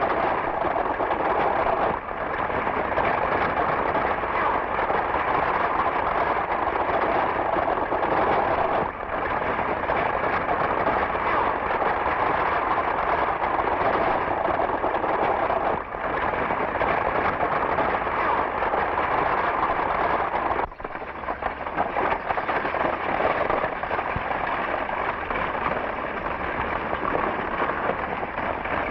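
Galloping horses' hooves and a stagecoach's wheels clattering in a dense, steady din that dips briefly a few times.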